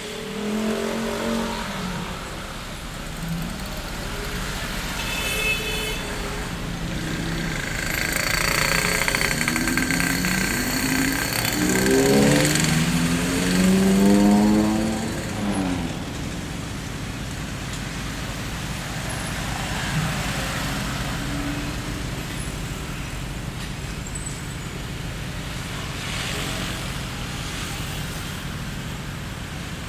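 Street traffic ambience: a steady wash of road noise, with one vehicle passing close through the middle, its engine rising in pitch as it accelerates before fading back into the traffic.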